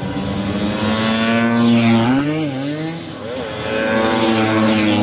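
Racing Vespa scooter engines running at high revs as they pass, the pitch dipping briefly about two seconds in and again about a second later before climbing back.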